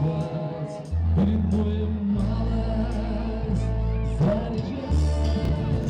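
Music of a song: a steady bass line with a melody over it, the bass notes changing every second or so.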